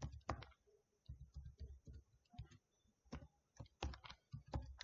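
Computer keyboard typing: a run of faint, irregular key clicks, several a second, as a password is keyed in.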